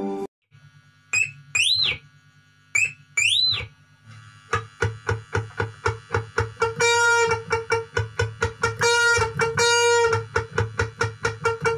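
Two wolf whistles, each a short chirp followed by a long rising-and-falling whistle. Then, from about four seconds in, an electric guitar plays fast picked notes broken by long bent notes, imitating a hen clucking and cackling.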